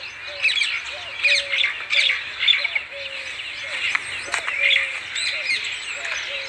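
Birds chirping and squawking in quick short calls, with a lower short call repeating about twice a second underneath.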